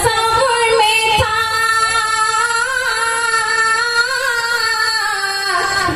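A woman singing one long held note into a microphone, the pitch wavering slightly, then dropping to a lower note near the end.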